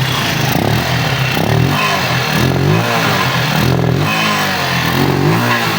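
Keeway RKV 200 motorcycle's single-cylinder four-stroke engine running just after starting, revved up and down in repeated blips about once a second.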